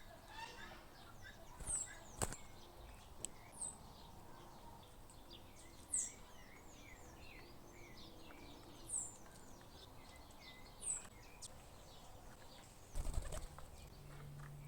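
Small wild birds chirping at a feeder: many short, quick high calls, with a sharper, higher note every two seconds or so. A brief rustling burst comes near the end.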